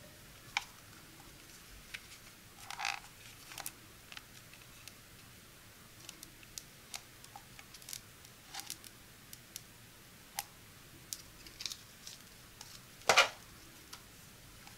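Hands handling the plastic body of a Kitchen Mama electric can opener: scattered light clicks and taps of the casing, and the crinkle of clear protective film being peeled off its front. A brief rustle comes about three seconds in, and a louder one near the end.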